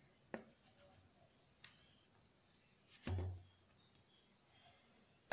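Quiet handling of bowls and spoon while flour is tipped into cake batter: a light click near the start, then a dull thump about three seconds in, with faint high chirps in the background.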